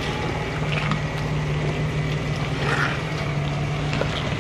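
Supercharged Jeep engine running steadily with an even, low hum.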